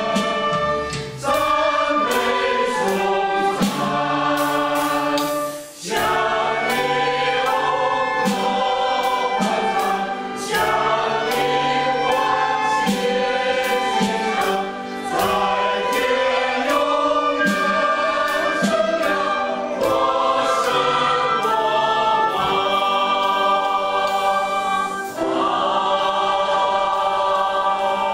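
Mixed choir of men's and women's voices singing a hymn in Mandarin, with short breaths between phrases about 1, 6 and 15 seconds in.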